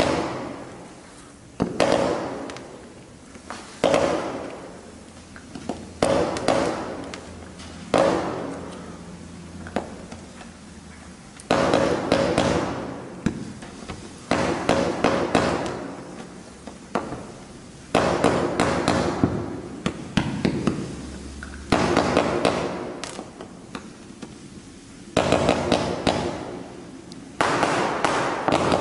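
Blackboxx Cascade low-noise 40-shot firework battery firing its comets in volleys: a sharp launch about every two seconds, some volleys made of several shots in quick succession, each followed by a fading hiss.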